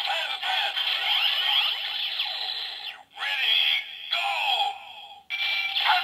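DX Build Driver toy belt, with the Grease Blizzard Knuckle loaded, playing its electronic finisher sound effects and standby music after its lever has been cranked. The sound is a dense mass of gliding synthetic tones, and it cuts out sharply twice, about three and about five seconds in.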